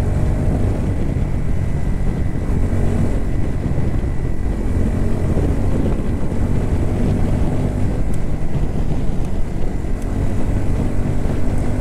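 Bajaj Pulsar NS160's single-cylinder engine running steadily while riding at cruising speed, heard from the rider's seat with wind rumble on the microphone.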